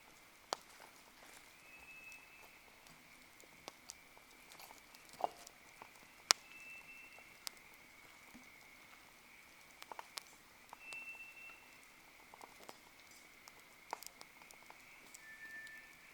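Wood fire crackling, with scattered sharp pops and snaps, the loudest about six seconds in, over a faint steady high-pitched drone.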